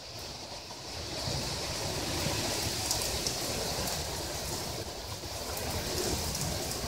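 Heavy rain pouring down with gusts of wind, the wind rushing through the trees and buffeting the microphone. The noise swells about a second in and stays up.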